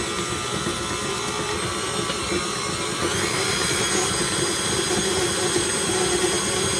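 KitchenAid Artisan tilt-head stand mixer running steadily, its flat beater churning cake batter in a stainless steel bowl. The motor's pitch rises slightly about three seconds in.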